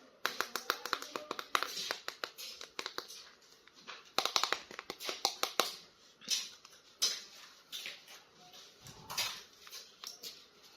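Hands handling a plastic action figure and its packaging: a run of irregular clicks, taps and short rustles.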